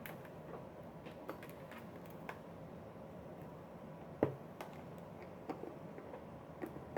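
Scattered light clicks and taps of small tools and parts being handled at a workbench, with one louder knock about four seconds in.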